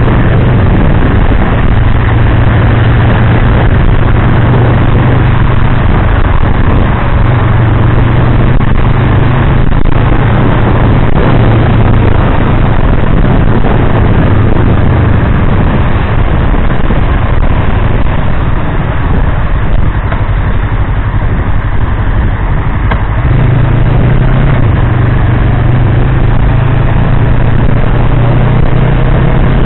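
Yamaha R3's parallel-twin engine, through an Akrapovič slip-on muffler, running at steady cruising revs on a wet road under a constant rush of wind and tyre noise. The engine note steps up to higher revs about three-quarters of the way in.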